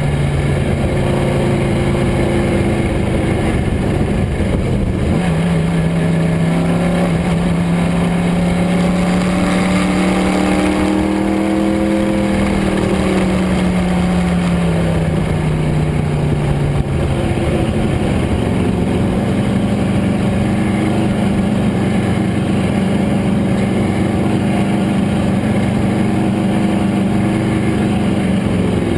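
Race car engine running at speed on a qualifying lap, its note climbing, dropping away around the middle as it lifts off, then climbing again.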